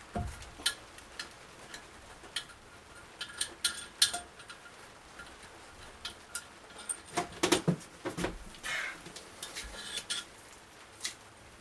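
Irregular metallic clinks and clicks of tools and engine parts being handled, some ringing briefly, with a few dull knocks and a busier run of clinks about seven seconds in.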